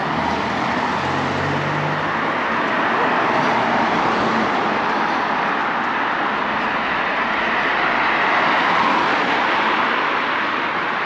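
A car driving past close by, its engine hum heard in the first two seconds or so, then steady road traffic noise that swells as more vehicles go by.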